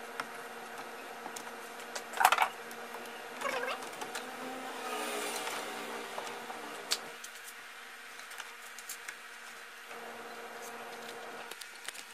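Scattered clicks and knocks of hands working a drive belt and a tensioner bar in a car's engine bay, with a louder knock about two seconds in, over a steady low hum. A fainter tone slides down in pitch between about four and seven seconds in.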